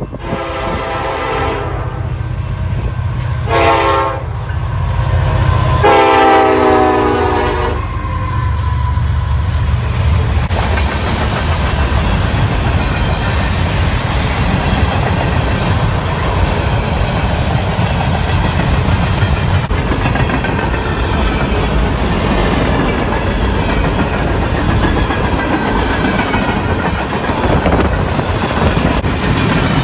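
Diesel freight locomotive's air horn sounding three blasts as it approaches a grade crossing: a long one, a short one, then a long one, over the low hum of its engine. From about eight seconds in, the freight cars roll past close by with a steady rumble of wheels on rail and clickety-clack over the rail joints.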